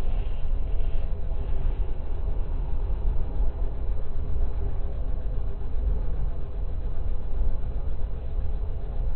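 Freight train cars rolling past: a steady low rumble of steel wheels on the rails, with faint sustained tones above it.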